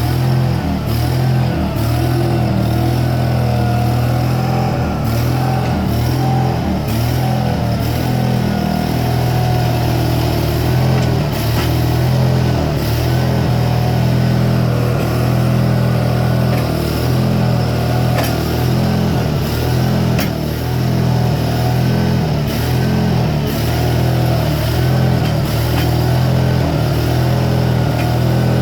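CASE 1816 skid steer running steadily under load, with a whine that rises and falls as it works and scattered sharp clanks.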